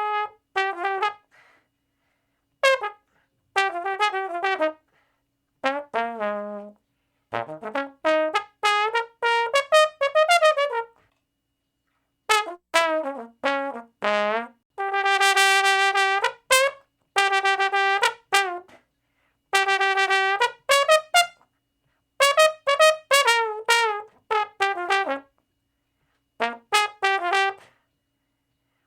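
Brass instrument playing phrases of quick, short notes separated by brief silences, with a few longer held notes around the middle.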